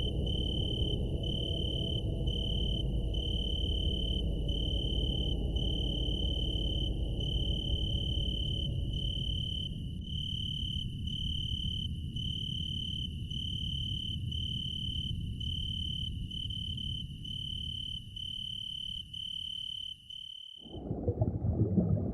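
A high, steady, cricket-like trill pulsing about one and a half times a second over a low rumble. Both cut off suddenly near the end.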